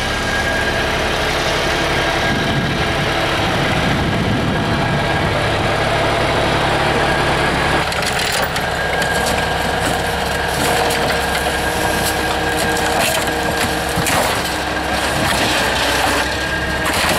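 Air-cooled three-cylinder Deutz diesel of an old Atlas 1300 excavator running steadily as the machine works a car wreck. In the second half it is joined by many short cracks and creaks of the crumpled car body's sheet metal being pulled and bent.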